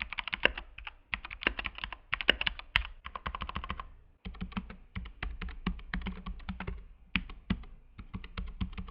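Typing on a Keychron mechanical keyboard: rapid key clicks in two runs, with a short pause about four seconds in.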